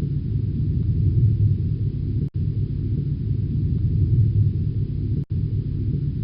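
A steady low rumble, broken by two very short dropouts, about two seconds in and again about five seconds in.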